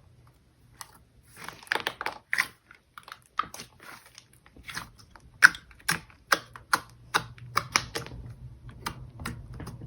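Slime being squished and poked by hand, making a quick, irregular run of clicks and small pops.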